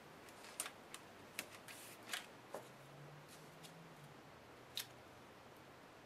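Faint crinkles and small ticks of vellum and a roll of double-sided score tape being handled as tape is pressed onto a bag flap, a few separate sounds in the first half and one more near the end.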